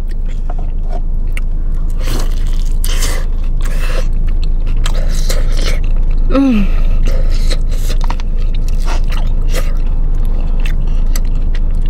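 Close-up biting and chewing of a gravy-dunked spicy fried chicken drumstick: many short, crisp crunches of the fried coating with wet chewing between them.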